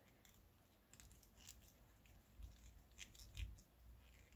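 Near silence with a few faint clicks, scrapes and soft knocks from small model-kit parts and a screw being handled and turned.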